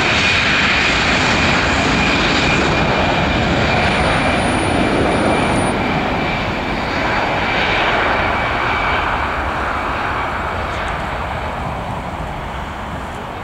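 Airbus A320's twin jet engines at takeoff power during the takeoff roll: a loud roar with a steady high whine that fades out about two-thirds of the way through, the roar slowly dying away as the aircraft moves off.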